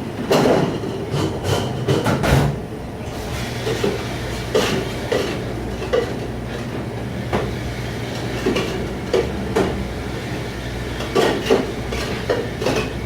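Dishes and racks clattering and knocking again and again over a steady low machine hum, as in a restaurant dish pit.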